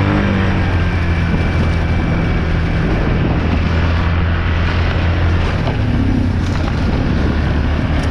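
Off-road vehicle engine running steadily under throttle, a loud low drone.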